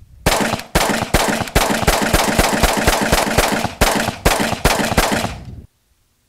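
AR-15 carbine in 5.56 firing a long string of rapid semi-automatic shots, about three to five a second, fastest in the middle. The firing stops suddenly about a second before the end.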